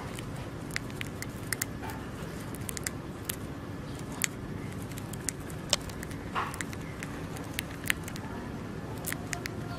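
A hamster nibbling popcorn held in its paws: irregular sharp little clicks and crackles, several a second, over a steady low hum.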